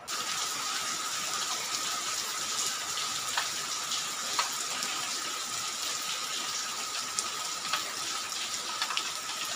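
Steady rain falling and running off the edge of a corrugated roof: a constant hiss with scattered faint drip ticks and a thin steady high note underneath.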